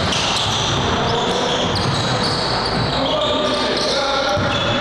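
Basketball dribbled on a hardwood gym floor, with people's voices in the background.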